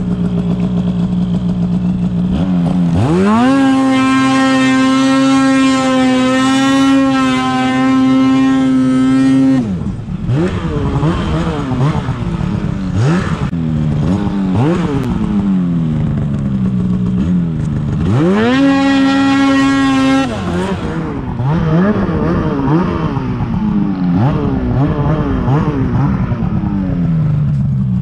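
Polaris 800 Assault snowmobile's two-stroke engine idling, then revved up about three seconds in and held at a steady high pitch for roughly six seconds before dropping back. The throttle is blipped up and down, held high again briefly about two-thirds of the way through, then worked on and off.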